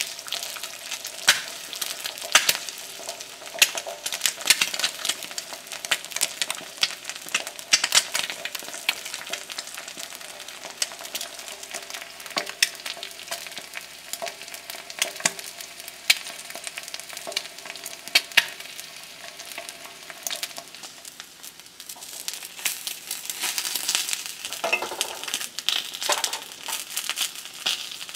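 An egg frying in oil in a small nonstick pan over a mini gas burner: a steady sizzle with many scattered crackles and pops of spitting oil.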